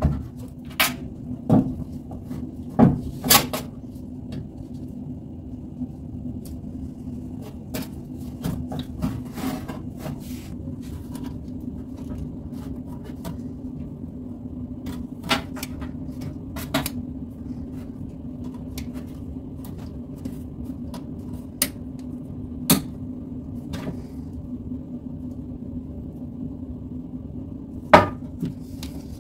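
Bosch Maxx 6 washing machine running with a steady low hum, broken by irregular sharp knocks and clatters.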